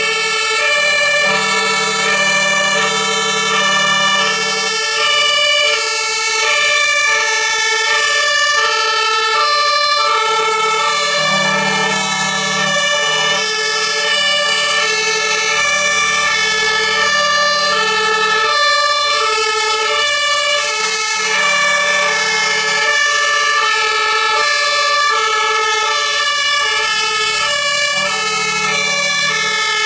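Two-tone sirens of several fire engines sounding together, their alternating high and low notes overlapping out of step, with truck engine noise underneath as the vehicles pass.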